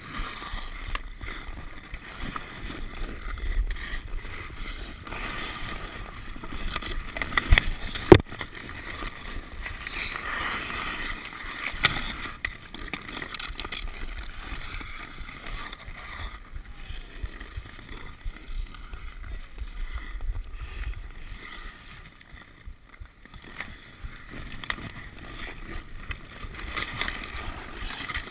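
Ice skates scraping and gliding over pond ice, heard close up from the skater's own body, with a few sharp clacks of hockey sticks on the puck or ice, the loudest about eight seconds in.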